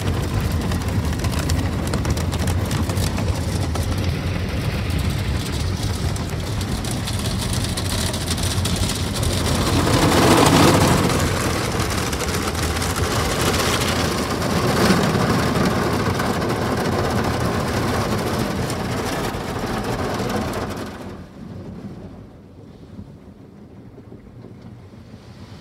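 Ryko Soft Gloss Max automatic car wash working over the car, heard from inside the cabin: a steady rush of water spray and the soft brushes scrubbing against the body and glass. It swells louder about ten seconds in, and drops much quieter near the end.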